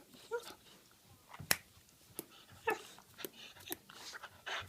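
A dog's teeth clacking together in about half a dozen sharp, irregular clicks, the loudest about one and a half seconds in.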